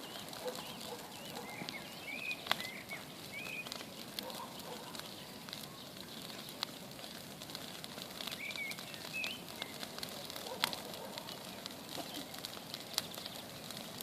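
Small wood campfire crackling with scattered sharp pops, while birds chirp briefly a few times.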